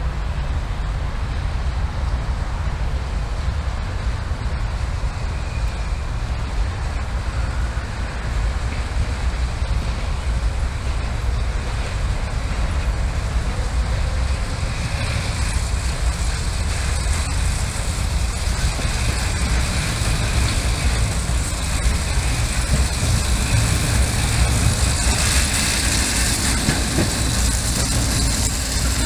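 Small 50 cm narrow-gauge park train approaching on its track, growing louder over the last several seconds as it draws near, over a steady low rumble.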